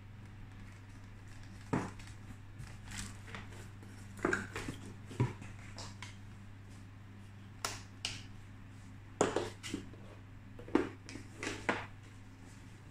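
Plastic-wrapped hair styling attachments, a hair dryer and their cardboard box being handled: scattered knocks, clicks and crinkles in short clusters, over a steady low hum.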